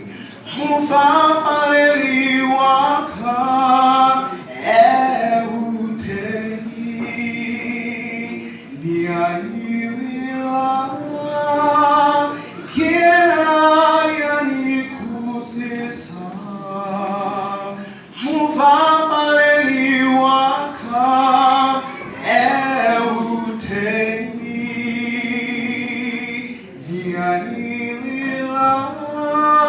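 Several voices, women's and men's, singing a gospel song in phrases of a few seconds each.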